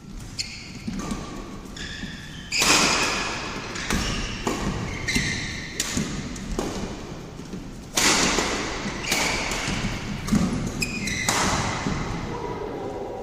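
Badminton rally on an indoor court: repeated short, high squeaks of shoes on the court floor mixed with sharp racket hits on the shuttlecock and thuds of footwork, echoing in the hall. Two louder hits come about 2.5 s and 8 s in.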